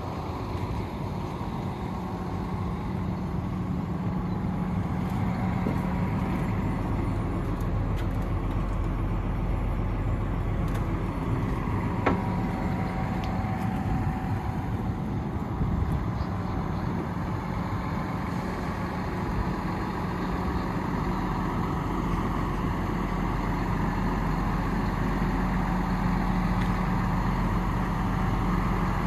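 Hino 338 box truck's 7.6-litre diesel engine idling steadily, with a single sharp click about twelve seconds in.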